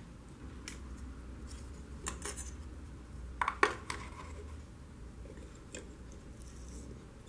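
Light metallic clicks and clinks as thin metal plates are handled and set against the core of a coil, with a sharper double clink about halfway through.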